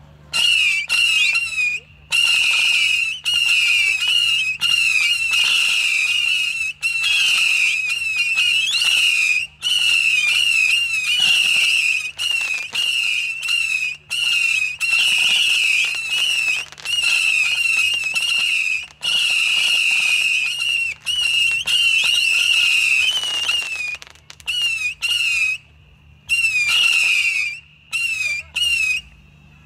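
Wespennest 300-shot whistler battery firing, a dense stream of overlapping shrill, warbling whistles around one high pitch. The whistles run almost without pause, then break up into shorter volleys with gaps over the last few seconds.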